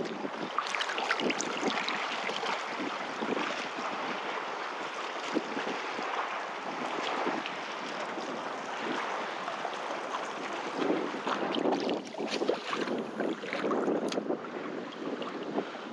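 Small waves washing and splashing in the shallows, with wind buffeting the microphone.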